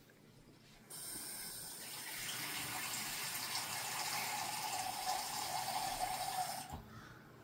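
Kitchen faucet running water into a glass measuring cup to fill it. It comes on suddenly about a second in, grows louder about a second later, and shuts off near the end.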